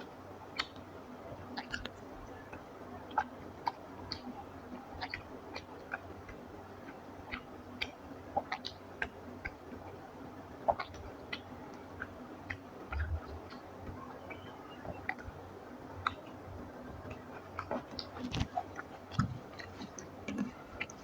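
Close-miked chewing of rice and fish curry: irregular wet mouth clicks and smacks, a few at a time.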